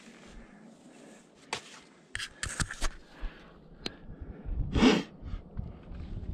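Scrapes and sharp clicks of a climber pulling up a fixed rope on rock: hands, boots and gear knocking and scraping, with a cluster of clicks in the middle. A short loud rushing noise comes near the end.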